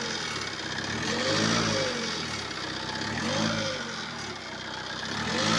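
Tata Yodha 1700's 2.2-litre diesel engine blipped repeatedly, its pitch rising and falling with each rev. The noise it makes as the revs drop off comes from a broken sheet-metal shield plate on top of the gearbox, not the turbo it first seemed to be.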